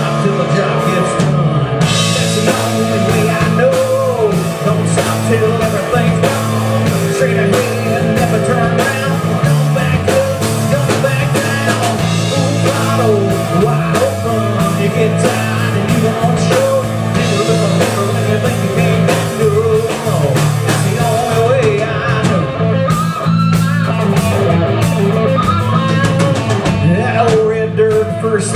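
Live rock band playing with electric guitars, bass guitar and drum kit, a wavering lead line bending over a steady bass and drum groove.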